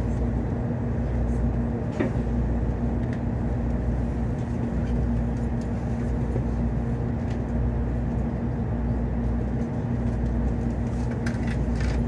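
Steady low hum inside a Tokaido Shinkansen passenger car as the train creeps to a stop, a constant low tone over a rumble, with a few faint clicks.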